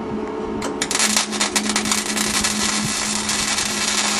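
Electric arc welding on steel, lawnmower blades being welded onto a car frame: a dense, irregular crackle that starts about half a second in, over a steady low hum.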